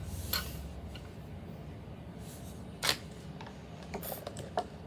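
Slime being worked by hand, giving a few sharp clicking pops, the loudest about three seconds in and a quick run of smaller ones near the end.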